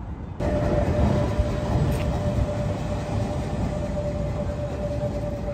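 Trolley-pole electric streetcar running on its track: a steady rumble with a steady electric whine held over it. The sound cuts in abruptly about half a second in.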